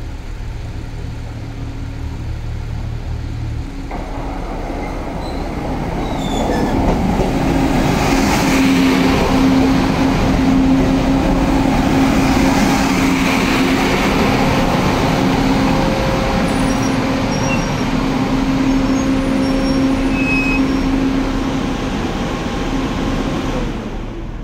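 JR East KiHa E200 series-hybrid railcar, two cars, pulling into the platform. It grows louder from about four seconds in, then holds a steady humming tone as it rolls alongside, and fades near the end.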